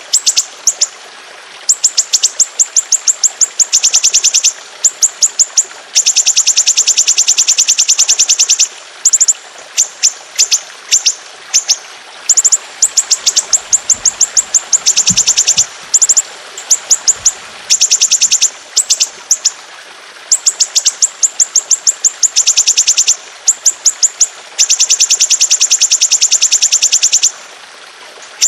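Songbird masteran (tutor) recording of long rolling trills: very fast runs of sharp, high repeated notes in phrases of one to three seconds, with short breaks between them.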